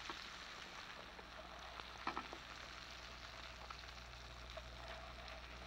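Floured slices of calf's brains frying faintly in butter in a sauté pan, with a few light clicks of a metal spatula about two seconds in as pieces are lifted out.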